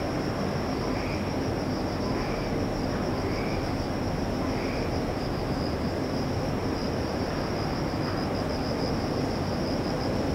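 Night ambience: insects trilling steadily in a high, fast-pulsing note over a continuous low rumble. Four faint short chirps come about a second apart in the first half.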